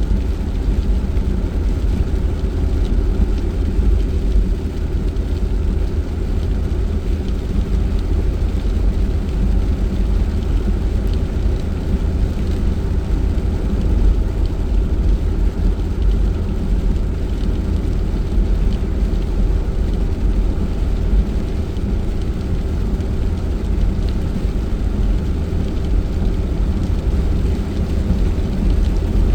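Steady low rumble of a car being driven, heard from inside the cabin: engine and tyre noise on the road, unchanging throughout.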